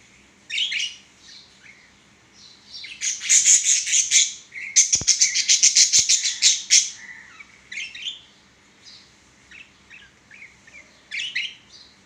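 Budgerigars chirping and chattering: scattered short high chirps, with a loud run of rapid, warbling chatter from about three to seven seconds in.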